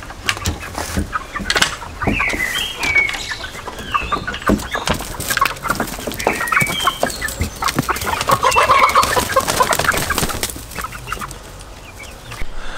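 Chickens clucking, with many short calls that overlap, and scattered sharp taps among them.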